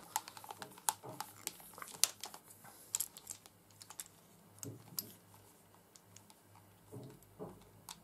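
Light plastic clicks and taps from a folded Black & Decker Stowaway travel hairdryer being handled and its cord wound round it. The clicks come thick and fast for the first few seconds, then thin out to scattered taps.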